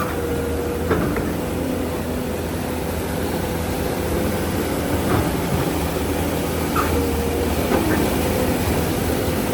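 Diesel engine of heavy construction equipment running steadily, with a steady higher whine over it and a few sharp knocks.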